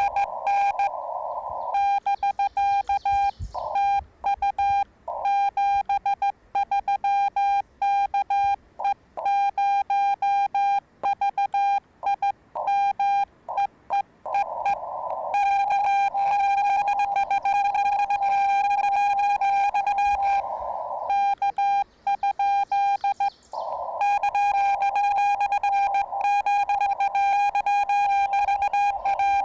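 Morse code (CW) from a Yaesu FT-891 ham radio transceiver: a single steady note keyed on and off in dits and dahs. Stretches of receiver band hiss come in between, at the start, about halfway through, again around three-quarters of the way in, and at the end.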